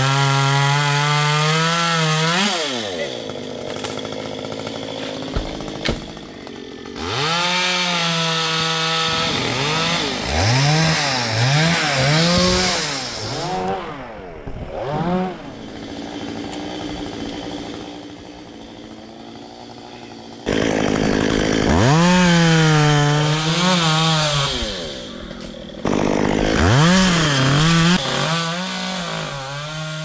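Stihl two-stroke chainsaw cutting eucalyptus wood. It is revved to full speed for a few seconds at a time, with quick throttle blips between the runs, and drops back to a low idle several times, longest from about 14 to 20 seconds in.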